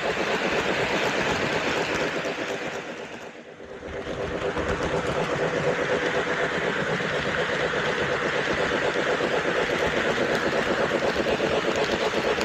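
Lionel LionChief Plus O gauge Hudson model locomotive and passenger cars running on the track: a steady whir and rattle of motor and wheels with a fast, even rhythm. The sound drops away sharply about three and a half seconds in and builds back up over the next second or so.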